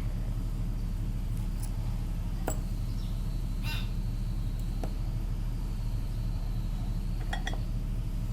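A few light metallic clicks and clinks as alternator parts and tools are handled during reassembly, over a steady low hum.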